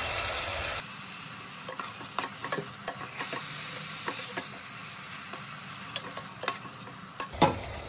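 Sliced onions, green peppers and tomatoes sizzling as they fry in oil in a pot, stirred with a metal spoon that clicks and scrapes against the pot many times. One louder knock of the spoon comes near the end.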